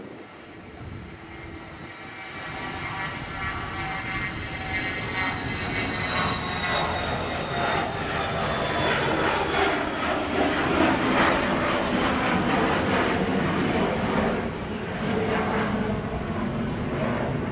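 Jet airliner departing under take-off power: a high engine whine that slowly falls in pitch while the roar grows steadily louder over several seconds and then holds.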